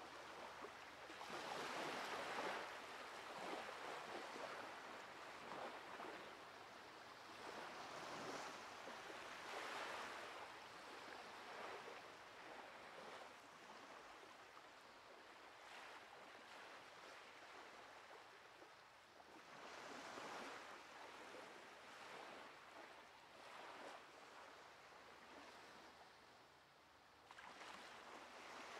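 Faint surf on a sandy beach: waves breaking and washing in, the hiss swelling and fading every few seconds.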